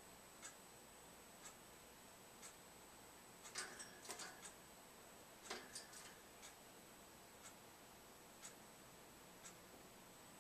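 Near silence with a faint tick about once a second, like a wall clock, over a faint steady high whine. About a third of the way in and again just past halfway, a quick flurry of small clicks and taps.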